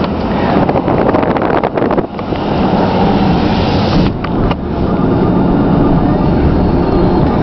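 A truck driving along, with steady engine and road noise heard from inside the cab, dipping briefly about two and four seconds in.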